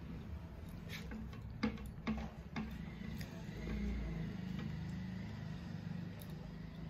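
Hand-eating sounds: fingers mixing and gathering rice and curry on plastic plates and chewing, with three sharp clicks half a second apart about one and a half seconds in, over a steady low hum.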